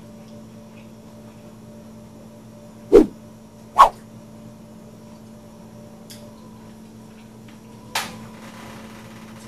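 Two short, loud sounds less than a second apart over a steady low hum, then a lighter knock near the end as a ceramic mug is set down on a mat.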